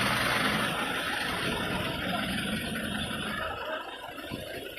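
Heavy vehicle engine idling with a steady low hum, dying away about three and a half seconds in.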